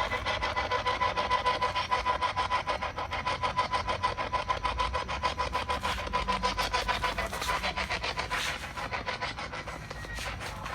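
Electronic device noise: rapid, evenly pulsing static over a steady high tone.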